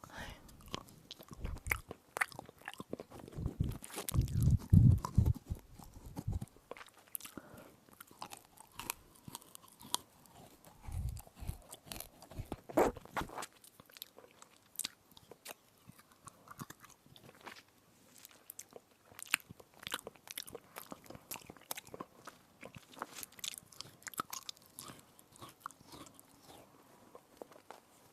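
Close-up crunching and chewing of a crisp edible spoon, a dense run of sharp crunches and clicks throughout. There are heavier low thuds of biting during the first several seconds and again about eleven seconds in.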